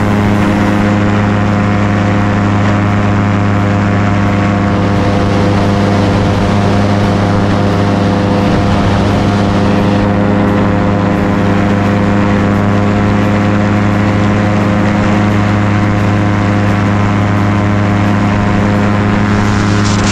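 The engine and propeller of a small open propeller aircraft running steadily in flight, holding an even pitch throughout. Near the end there is a brief brighter hiss of rushing air.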